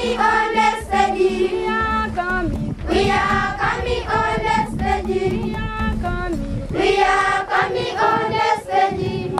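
A choir of schoolgirls singing together, in phrases that start again about every four seconds.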